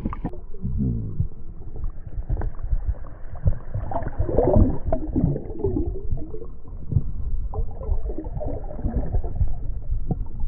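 River water gurgling and sloshing, heard muffled through a submerged GoPro, with a low rumble and scattered knocks. The sound is busiest about four to six seconds in.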